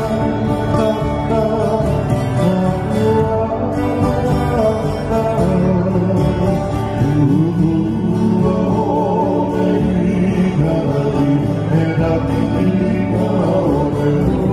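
Live Hawaiian trio music: acoustic guitar, ukulele and electric bass guitar playing together, amplified through PA speakers.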